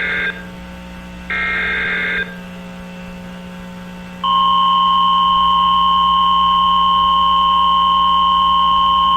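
Emergency Alert System SAME header data bursts, harsh digital squawks each about a second long, heard twice near the start. About four seconds in, a steady alert attention tone starts and holds for roughly five seconds, cutting off at the end. A low electrical hum runs underneath.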